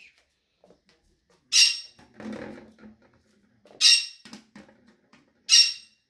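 Three short, shrill parrot squawks, evenly spaced about two seconds apart. Between them come softer knocks and crinkles of an empty plastic bottle being pushed across a hard floor.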